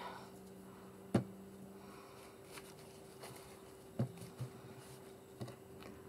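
Faint steady room hum with a few light taps and clicks from cards and a glue bottle being handled on a craft table; the sharpest tap comes about a second in, with softer ones near the end.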